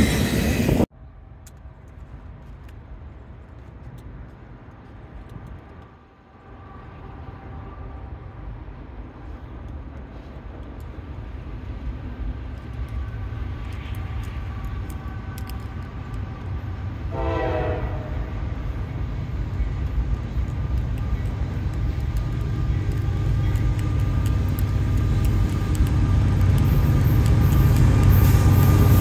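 The last cars of a passing freight train stop suddenly about a second in. Then an approaching CSX freight train led by diesel locomotives rumbles, growing steadily louder, with its horn sounding: a short blast about two-thirds through and the horn loud near the end as the locomotives close in.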